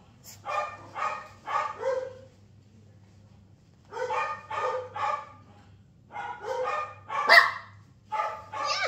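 A dog barking in short runs of several barks at about two a second, with pauses between the runs; one bark about three quarters of the way through is louder than the rest.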